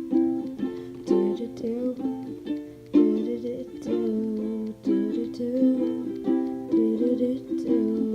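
Instrumental passage of a gentle acoustic song: a small plucked string instrument playing chords, each chord struck and ringing every half second or so.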